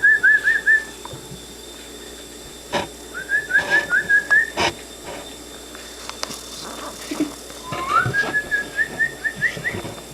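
A person whistling a quick string of short, rising notes, about six or seven a second, in three bouts with pauses between, the way one calls a pet dog. A couple of sharp knocks fall between the first and second bouts.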